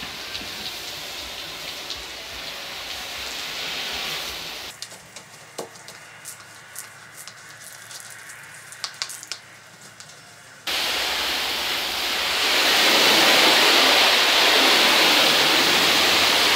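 Garden hose spray nozzle hissing as water rinses a car's body. About five seconds in the spray stops and a quieter stretch of scrubbing follows, a long-handled wash brush working the soapy hood with scattered clicks and taps. About ten seconds in, a louder, steady spray starts abruptly as the hood is rinsed.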